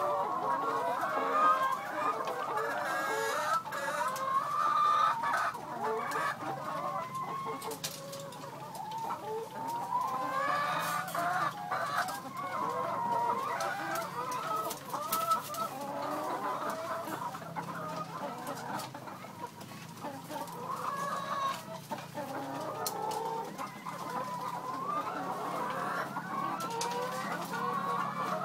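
A flock of chickens clucking and calling, many birds overlapping throughout, with a steady low hum underneath.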